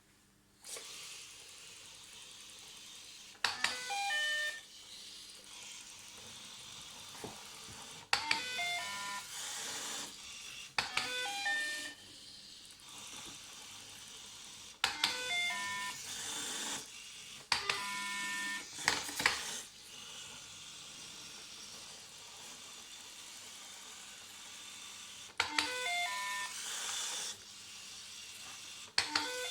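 Small Arduino-controlled robot giving short bursts of electronic beeps: quick runs of tones jumping up and down in pitch, about seven times at irregular intervals. Its small drive motors make a steady whir underneath, and each burst opens with a sharp loud noise.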